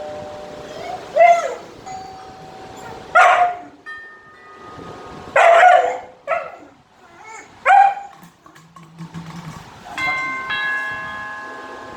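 A dog barking, four loud single barks about two seconds apart, followed near the end by a ringing chime of several steady tones.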